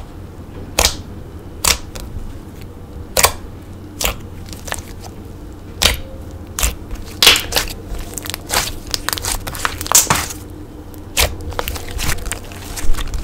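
Hands squishing and poking slime, giving irregular sharp pops and clicks, with a denser run of crackling about seven to ten seconds in.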